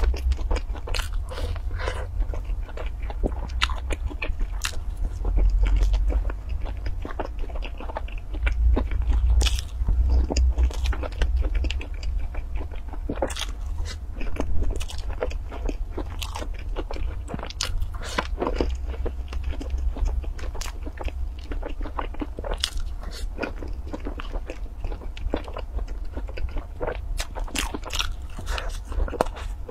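Close-miked eating of soft, cream-filled pastry balls with a crumbly topping: bites, chewing and many sharp, irregular wet mouth clicks and crackles, over a steady low rumble.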